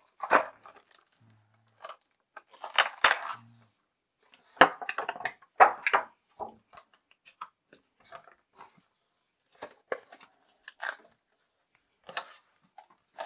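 Handling noises: small hard items and packaging being picked up and set down, with irregular clicks, taps and crinkling in several short bursts.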